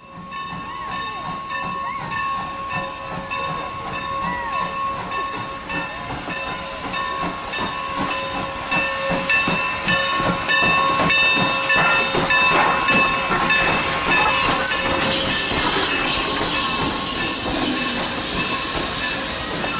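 Norfolk & Western 475, a 4-8-0 steam locomotive, pulling into a station with a steady hiss of steam. It grows louder about halfway through as the engine comes alongside. A steady high-pitched tone runs under the hiss for most of the time.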